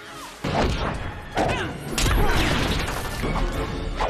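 Animated-film fight soundtrack: hard hits and crashes about half a second, a second and a half, and two seconds in, with short cries from the fighters over the film's music score.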